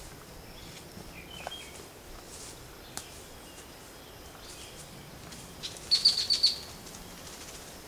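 A wild bird calling: a few soft high chirps, then about six seconds in a quick run of six or seven high, sharp notes, over a faint steady outdoor background.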